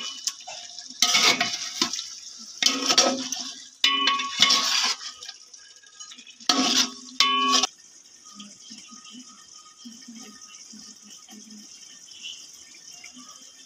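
Metal spatula scraping and clanking against a metal pot as chicken pieces are stirred and fried in spice paste, in several loud bursts over the first eight seconds. The meat sizzles steadily throughout, alone and quieter in the last few seconds.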